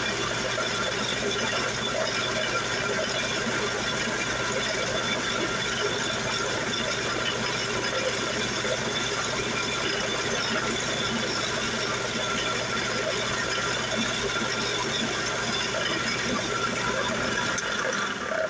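A DuraCraft 8-inch benchtop drill press running steadily at its top speed of about 3270 rpm while a tiny 0.4 mm bit drills into brass. Its steady hum cuts out shortly before the end as the machine is switched off.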